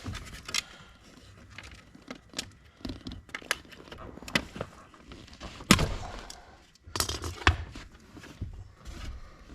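Irregular clicks and knocks of tools and parts being handled in a small space, with a few sharper thunks about six and seven and a half seconds in.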